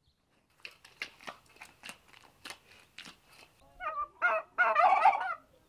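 A knife scraping and cutting into raw pumpkin flesh, a run of crunchy scrapes. Then, from a little under four seconds in, domestic turkeys gobbling: a loud, wavering call in a few bursts, the loudest sound here.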